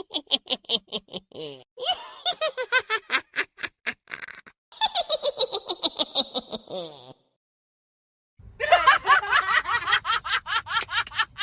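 Laughter sound effects played back to back: bursts of rapid, high-pitched "ha-ha-ha" laughing whose pitch falls through each burst. About two-thirds in there is a second's silence, then a final laugh with a low hum underneath.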